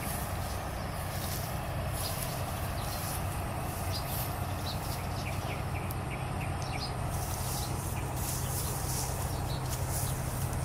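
Footsteps rustling through tall grass and brushing leaves, over a steady low hum, with a few faint bird chirps in the middle.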